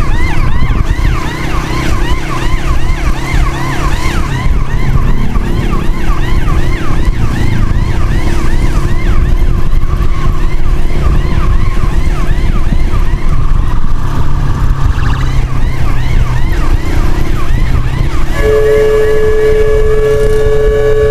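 Emergency siren in a fast yelp, sweeping about three times a second, over a steady low road and wind rumble. About eighteen seconds in, the yelp gives way to a steady held horn-like tone.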